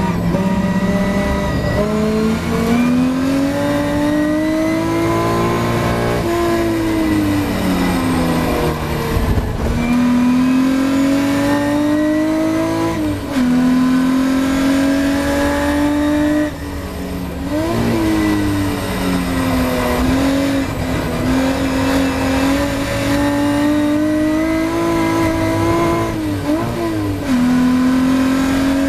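Ford Capri V6 race car engine heard from inside the cockpit at racing speed. The engine note climbs for several seconds at a time and drops sharply at the gear changes. About a quarter of the way in it falls away slowly as the car slows, and a few times the revs jump up and back down in a quick blip.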